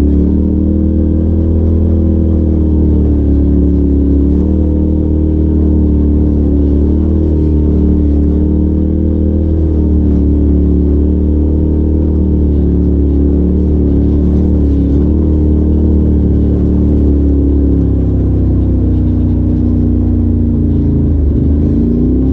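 Polaris RZR Turbo side-by-side's turbocharged engine running steadily while cruising along a dirt trail, heard from the driver's seat. Its pitch dips briefly and then picks up again near the end as the machine slows and accelerates.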